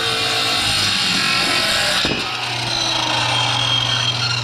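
Corded circular saw cutting through a pressure-treated pine deck board. The cut ends about two seconds in, and the saw then winds down with a faint falling whine.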